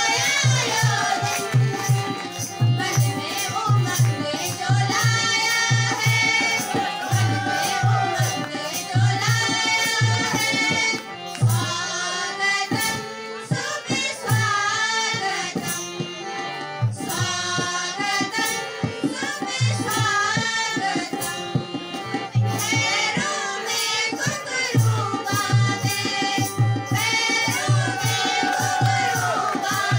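Music: a welcome song, a voice singing over a steady drum beat of about two strokes a second.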